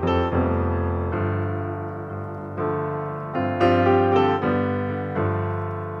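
Background piano music: slow chords held and left to ring, a new chord coming in every second or two.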